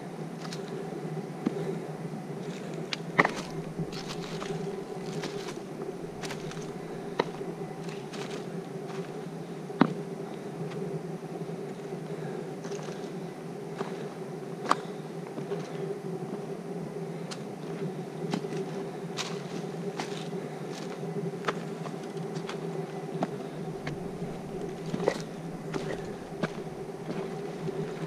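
A steady buzzing hum throughout, with irregular clicks and taps of footsteps on the trail scattered over it.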